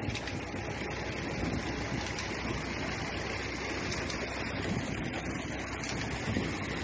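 A tubewell's 6-inch delivery pipe discharging a heavy stream of water into a cement tank, gushing and splashing steadily, with a tractor engine running steadily underneath as it drives the pump.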